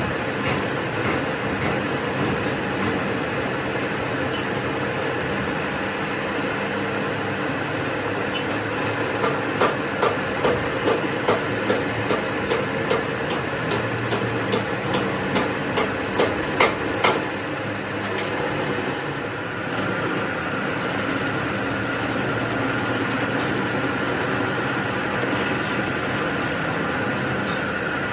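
Metalworking machine running steadily with a high metallic whine and screech of metal being worked, and a run of sharp clicks and knocks through the middle.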